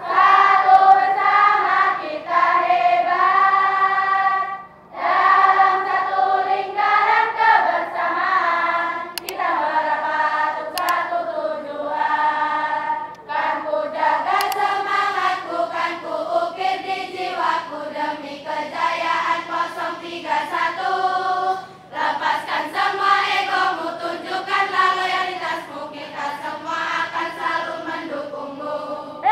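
A large group of girls singing together in unison, one melody from many voices, with short breaks between phrases about five seconds in and again about twenty-two seconds in.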